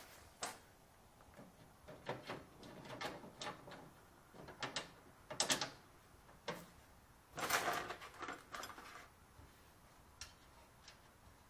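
Scattered knocks, clicks and a short rattle of a steel weight bracket being handled and held against a lawn tractor's rear hitch plate while it is lined up for fitting, loudest a little past halfway.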